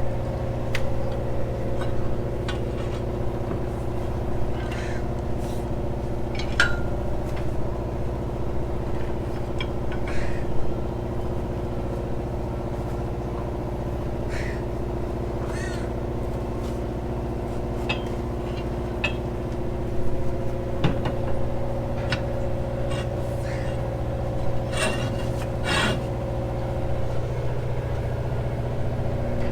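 An engine running steadily at a constant speed, with scattered light clicks and knocks over it.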